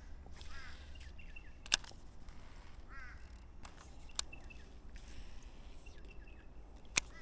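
Birds calling: short high chirps in quick little runs and a few curved, harsh calls. Three sharp clicks are spaced about two and a half seconds apart, and a low steady rumble runs underneath.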